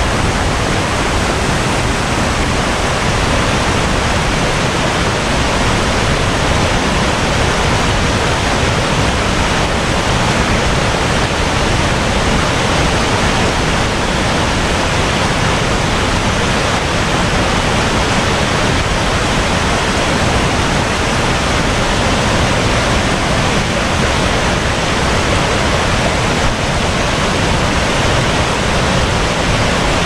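Loud, steady rush of river water falling and running over rocks, with no change in level.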